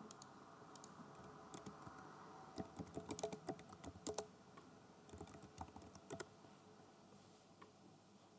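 Computer keyboard being typed on: a quiet, irregular run of key clicks in short clusters, mostly over by about six seconds in.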